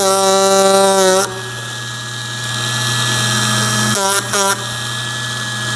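Ryobi 4-volt USB power carver running with a steady buzz as its reciprocating chisel cuts into pine; for about the first second the buzz is louder, then settles.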